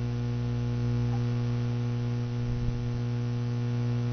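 Steady electrical mains hum: a low, constant buzzing tone with a stack of overtones.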